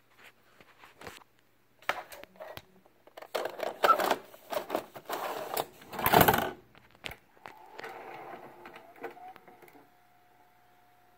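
Videocassette pushed into an Audiovox VBP 2000 portable VCR: a clatter of plastic clicks and knocks as the tape goes into the slot, then the player's loading mechanism whirring with a faint steady whine from about seven or eight seconds in.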